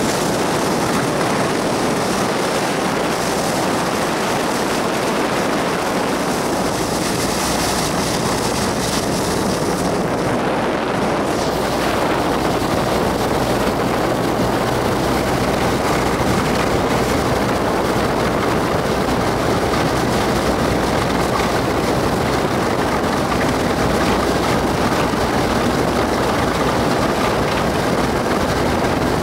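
Volga hydrofoil motorboat running at speed, a steady rush of water and wind over the engine's drone. About ten seconds in, the hissing spray at the bow fades as the hull rises onto its foils, leaving a steadier engine hum with the foils cutting the water.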